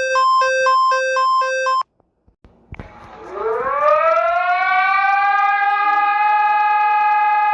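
Emergency alert alarm tones: an alternating low-high electronic beep that stops about two seconds in. After a brief pause, a siren winds up, rising in pitch, then holds one steady wailing tone.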